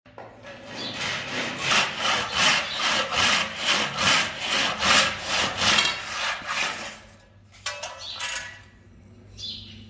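Handsaw cutting wooden door molding in a wooden miter box, in steady back-and-forth strokes, about three every two seconds. The sawing stops about seven seconds in, followed by a few brief knocks and scrapes.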